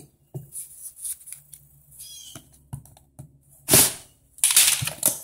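Hard plastic tool case being handled: scattered light clicks and knocks, with a short louder scrape about four seconds in and another cluster of knocks just after.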